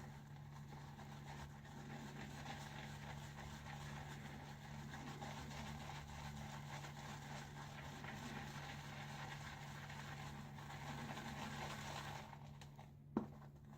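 Badger shaving brush being swirled through soap and water in a bowl to build lather: a faint, steady swishing, with a single sharp click near the end.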